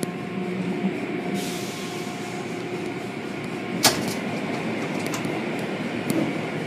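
Automatic car wash heard from inside the car: the steady whir and rush of soft-cloth brushes and curtains sweeping over the foamed hood and windshield, with a sharp knock about four seconds in.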